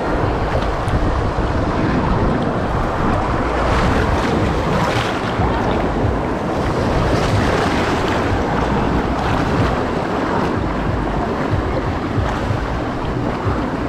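Rushing, splashing water of a water-park rapids ride heard close up from an inflatable raft, steady throughout with louder surges of splashing now and then.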